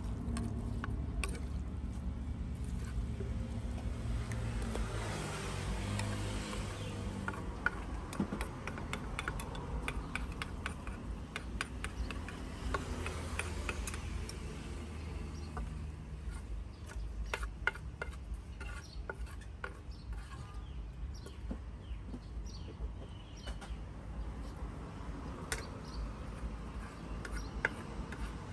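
Street background noise: a steady low engine and traffic rumble, with a pitched engine hum in the first several seconds, and many scattered light clicks and knocks.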